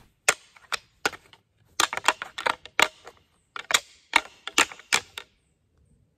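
Sharp, irregular clicks and taps close to the microphone, some in quick clusters, stopping about five seconds in.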